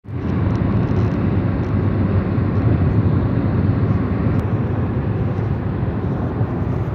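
Steady low rumble of a car driving at highway speed, heard from inside the cabin: road and wind noise.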